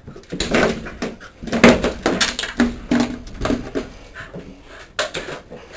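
Excited dog giving a run of short yips and whines, with knocks and clattering from its claws and the shower fittings as it scrambles toward the shower.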